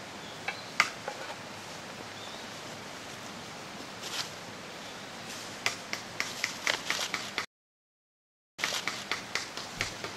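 Dry fallen leaves crackling underfoot as a child shifts and steps: a run of short sharp clicks over a steady outdoor hiss, few at first and thicker in the second half. The sound cuts out completely for about a second in the middle.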